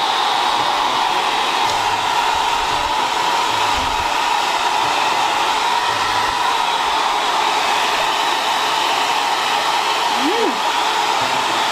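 Hair dryer blowing steadily on a dog after its bath, with an even rushing noise. There is one short rising-and-falling squeak about ten seconds in.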